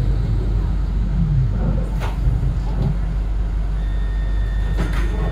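Yarra Trams E-class tram slowing to a stop, heard from inside the car: a steady low rumble with sharp clicks about two seconds and five seconds in, and a steady high tone that comes on near four seconds in.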